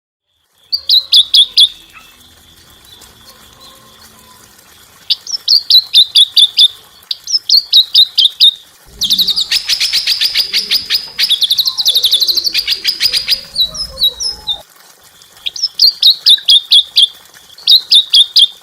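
A small songbird singing in bursts of rapid, repeated sharp notes, with a longer, louder, dense trill in the middle.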